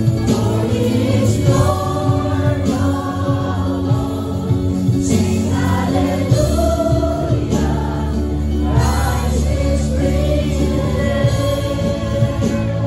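A Christian worship song sung by several voices together over a live band, with a sustained low bass note coming in about halfway through.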